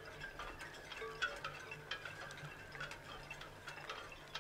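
Faint, irregular light clicks and clinks, several a second, over a low hum.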